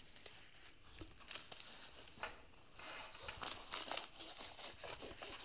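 Faint crinkling and rustling as a rolled diamond painting canvas is handled and set down on a desk, with a few light taps at first and steadier crinkling through the second half.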